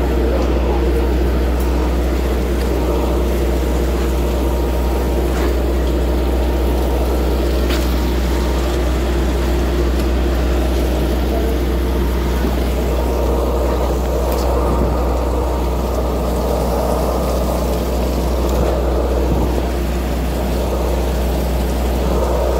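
Steady, unchanging drone of a fishing trawler's engine and machinery, a low hum with a constant pitched note above it. A few faint ticks are heard now and then.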